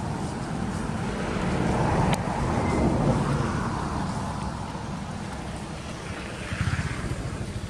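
Wind buffeting the microphone: a low, rumbling noise that swells about two to three seconds in and then eases, with one sharp click about two seconds in.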